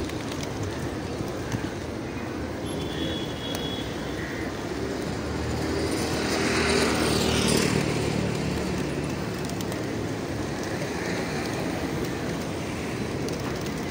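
A large flock of pigeons flapping their wings, a continuous whir of many wingbeats that swells louder about seven seconds in.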